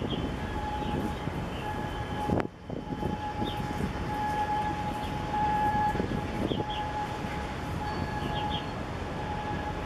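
Steady outdoor rumble with a thin, unwavering high hum running through it, and short high chirps of birds now and then.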